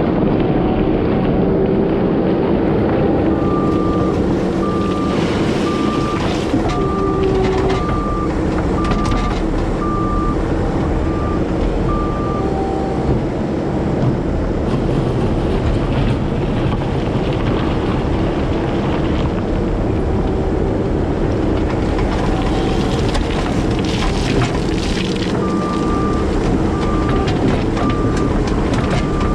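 Diesel engine of heavy equipment running steadily, with its backup alarm beeping at an even pace while it reverses: first for about nine seconds, then again near the end. Occasional clatter is heard over the engine.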